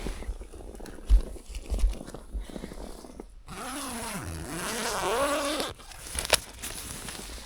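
Rustling and low bumps of handling, then a tent door zipper pulled open with a rasp for about two seconds, and a single sharp click near the end.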